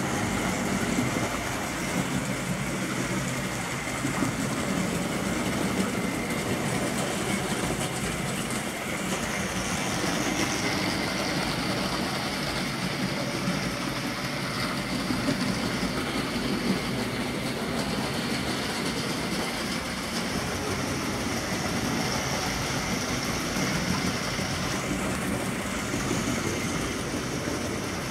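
Model train running on its layout track: the steady running noise of the small locomotive motor and wheels on the rails.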